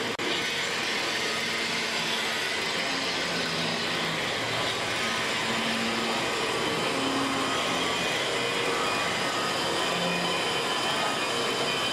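Motor-driven carving spindle running steadily while a man-made rock crystal snuff bottle blank is ground against its spinning tip: a continuous whirring hiss with faint hums, dipping briefly just after the start.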